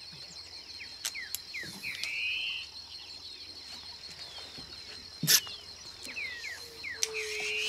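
Riverside dawn chorus: a steady high-pitched insect drone with birds chirping, one giving a buzzy rising call twice. A single sharp click about five seconds in is the loudest sound.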